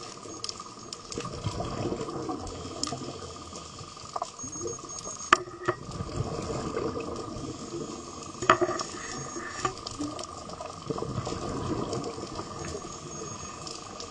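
Underwater bubbling and gurgling, heard through a dive camera, with scattered sharp clicks; the strongest clicks come about five seconds in and again about eight and a half seconds in.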